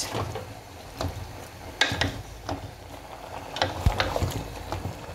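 A spoon scraping and knocking against an aluminium pot while chunks of seasoned raw meat and onions are stirred and turned over, in scattered, irregular knocks.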